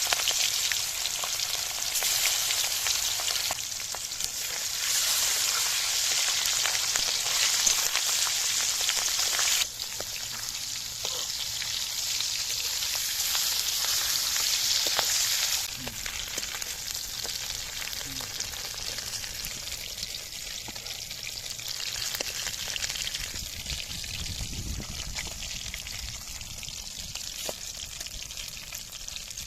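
Food sizzling in hot oil in a pan, a dense steady hiss that is louder for the first half and drops off abruptly about ten and again about sixteen seconds in, then goes on more quietly.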